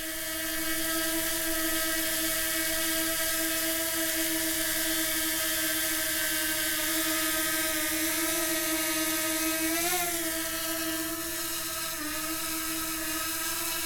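DJI Mini 2 quadcopter flying, its propellers making a steady whine. The pitch rises briefly about ten seconds in and dips slightly near the end as the motors change speed.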